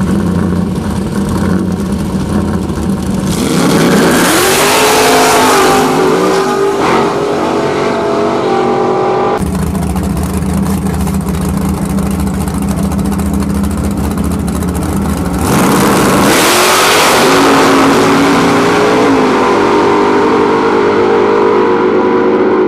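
Drag-race car engines idling at the line, then revving up with a rising pitch and running at full throttle. This happens twice, about four seconds in and again about sixteen seconds in.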